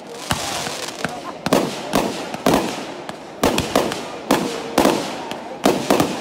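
Fireworks firing in quick succession from the ground: a string of sharp bangs, roughly one or two a second, as shells launch and burst overhead.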